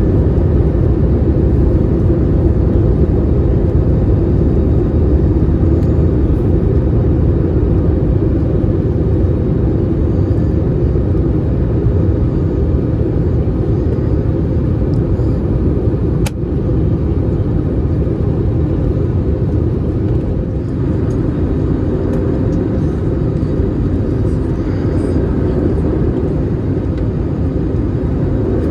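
Steady deep roar inside the cabin of an Airbus A321neo airliner in flight, with a single sharp click about halfway through, after which the roar drops slightly.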